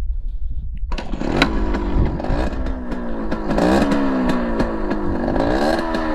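Yamaha RX100's two-stroke single-cylinder engine starting about a second in, then running with three blips of the throttle that rise and fall in pitch. It runs smoothly with no knocking from the engine, a knock the owner says has been cured.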